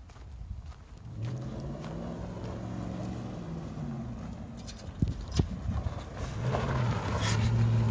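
Nissan Titan pickup's V8 engine revving up and down as the truck spins on dirt, growing louder as it comes close near the end. Two sharp clicks about five seconds in.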